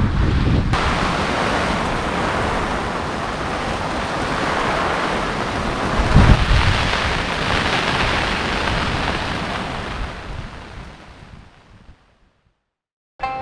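Surf on a sandy beach with wind buffeting the microphone, a steady rushing noise with a louder low gust about six seconds in, fading out near the end.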